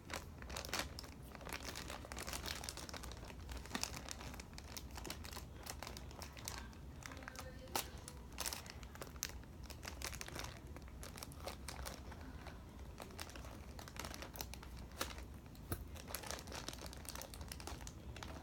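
Plastic and cardboard toy packaging crinkling and rustling as it is handled and cut open with scissors, with many small sharp clicks and crackles throughout.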